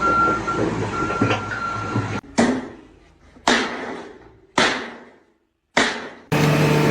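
Four sudden bangs about a second apart, each dying away, after a couple of seconds of mixed clatter with a steady high beep.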